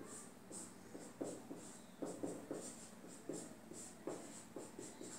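Marker pen writing on a whiteboard: a run of faint, short strokes at an uneven pace as numbers and brackets are written.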